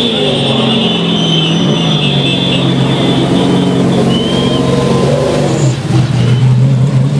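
NASCAR Truck Series race truck's V8 engine running loud and steady at low speed as it passes close by, a deep low drone.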